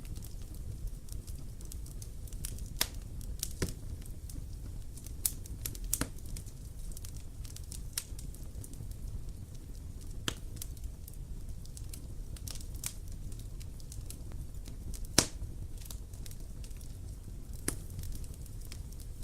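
Wood fire burning: a steady low rumble of the flames with sharp crackles and pops scattered through it, the loudest about fifteen seconds in.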